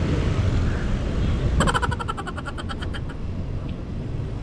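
Steady wind and road rumble from riding a bicycle. About a second and a half in, a quick run of bright metallic ringing strikes, about eight a second, lasts for a little over a second.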